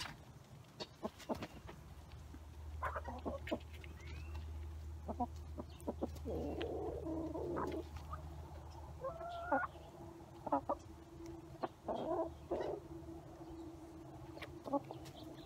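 Backyard chickens clucking softly in short calls while they feed close by, with many sharp taps of beaks pecking bread and grit off the dirt.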